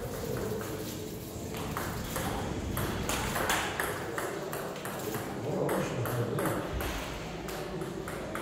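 Table tennis rally: the ball clicking off the table and the players' bats in quick, irregular succession.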